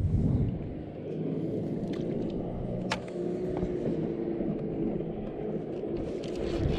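Low rumble of wind on the microphone over open water, with a faint steady hum underneath and a single sharp click about three seconds in.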